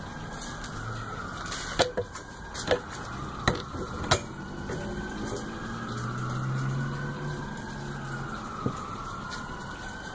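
Billiard balls clacking together about five times as they are racked on the table, over a siren slowly wailing up and down in the background.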